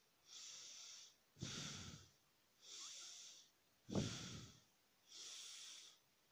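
A person breathing slowly and deeply close to the microphone, with breaths in and out alternating about every second. Longer soft hissing breaths alternate with shorter breaths that start sharply.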